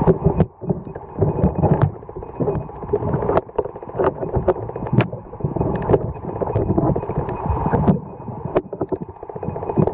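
Muffled underwater noise picked up by a submerged camera: an uneven low rumble of moving water, with scattered sharp clicks and knocks.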